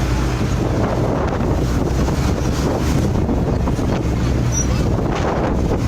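Steady wind buffeting the microphone over a low, continuous rumble.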